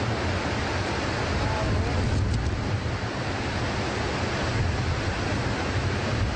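Niagara Falls pouring over its brink: a steady rush of falling water, heaviest in the low end.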